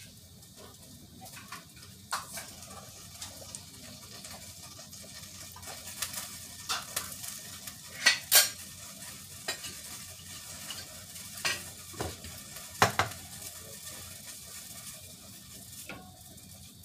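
Food frying in a pan with a steady sizzle, while a utensil stirs it, scraping and clicking against the pan every second or two, loudest about halfway through.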